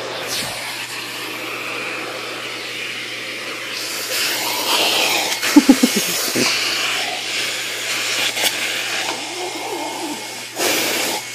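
Vacuum cleaner running with a steady hiss of suction. About five and a half seconds in, a few loud short sounds come in quick succession.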